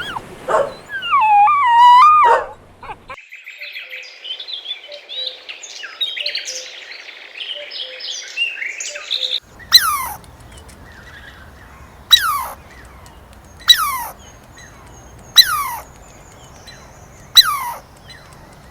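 Birds chirping and chattering, followed by a sharp falling call repeated five times about every two seconds. A short wavering whine comes before them at the start.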